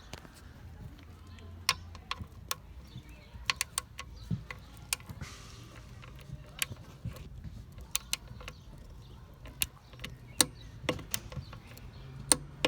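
Scattered sharp clicks and taps of hand tools and metal parts being handled, irregularly spaced, over a faint low hum.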